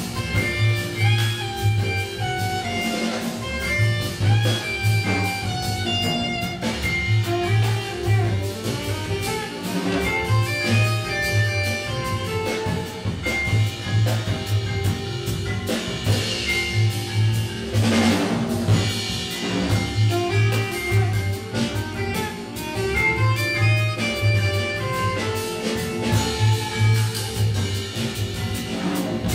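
Small jazz group playing live: vibraphone notes over upright bass and a drum kit with cymbals, with saxophone at the start.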